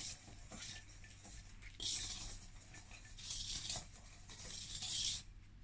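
Hand whisk stirring a dry flour mix in a stainless steel mixing bowl: a few soft scraping swishes as it is worked through the flour, with faint light clicks of metal on metal.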